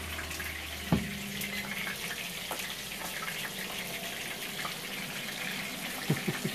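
A steady sizzling hiss with small crackles, fitting meat frying in a pan, together with the steady run of a Ninja Foodi pressure cooker. A sharp click about a second in, where a low hum stops, and a couple of knocks near the end.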